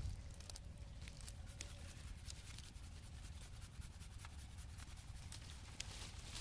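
Faint, irregular crackling and rustling of dry leaves and cut coffee branches and twigs, brushed and stepped on, over a low steady rumble.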